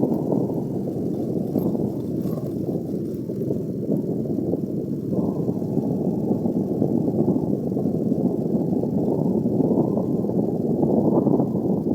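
Steady low rumbling noise of a moving vehicle, heavy and even throughout with no distinct strikes or tones.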